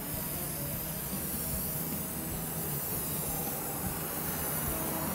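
Aerosol spray paint can spraying: a steady hiss as the paint mist is swept across a wooden cabinet door.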